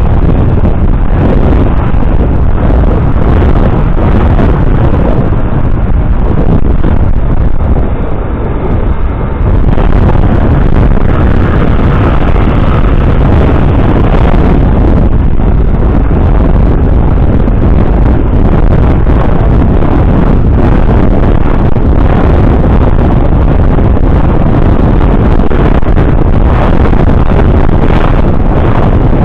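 Loud, steady wind rumble buffeting the microphone while cycling, easing briefly about eight seconds in.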